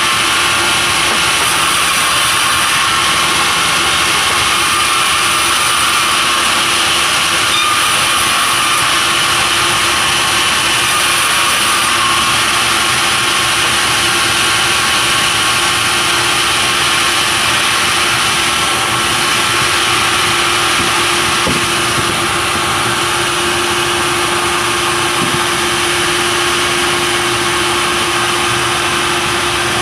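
Sawmill machinery running steadily, with a loud, even saw-and-engine noise throughout; a steady hum comes forward about two-thirds of the way through.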